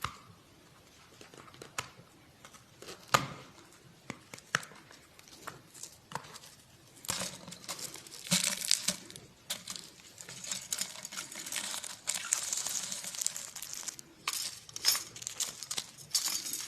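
Courier parcel packaging being opened by hand: scattered crinkles and clicks at first, then from about seven seconds in a long stretch of crinkling and tearing of the wrapping.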